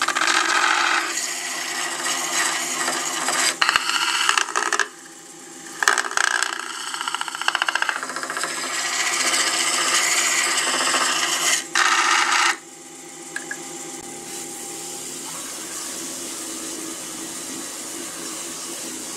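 Wax being rubbed onto an oak turkey pot call spinning on a wood lathe: a rough rubbing noise in several stretches with short breaks, over the steady hum of the running lathe. The rubbing stops about twelve seconds in and the lathe runs on alone.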